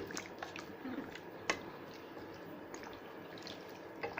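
Chicken pieces frying in oil and ginger-garlic paste in a pan, wet with the water the meat is releasing: a low steady sizzle with scattered small pops and crackles, a sharper pop about one and a half seconds in.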